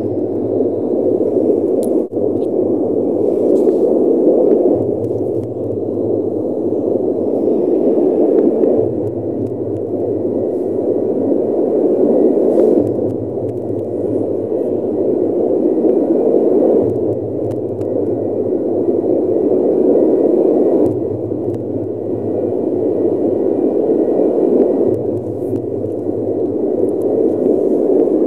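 Steady, loud rushing noise, like static or a droning hiss, with a low hum underneath that switches on and off in a regular pattern repeating about every four seconds.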